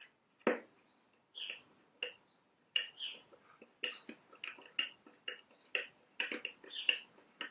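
Hand thread tap being turned into a blind hole, giving short irregular clicks and squeaks about once a second as it cuts the thread.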